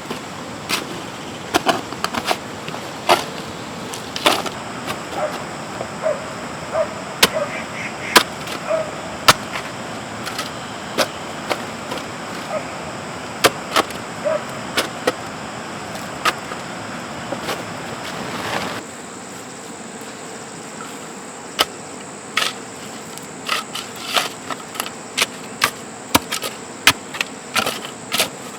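Irregular sharp knocks and clicks, a few a second at times, over a steady high-pitched drone and background hiss. The background changes abruptly about two-thirds of the way through.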